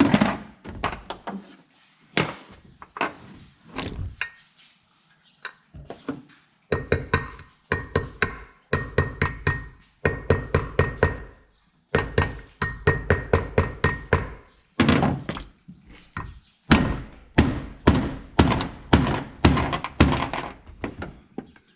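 Hammer blows driving a new wheel into place on a lawn dump cart: a few scattered knocks at first, then from about seven seconds in, runs of quick strikes about four a second with short pauses between runs.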